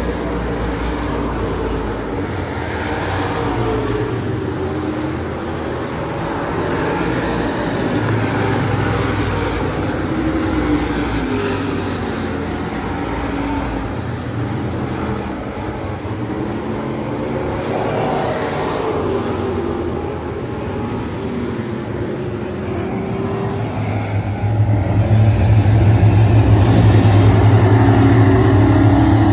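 Pure Stock dirt-track race cars running laps, their engine notes rising and falling as they circle the oval. About 24 seconds in, the cars come past close by and the engine sound gets much louder.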